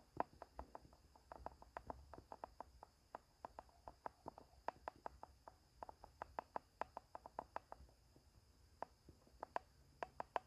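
Rapid, irregular light clicks or taps, several a second, thinning out to a few scattered ones about eight seconds in.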